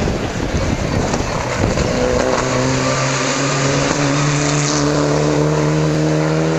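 Mitsubishi Lancer Evolution IX rally car's turbocharged four-cylinder engine driving past under power. After a rough, noisy first couple of seconds, the engine settles into a steady, loud, sustained note.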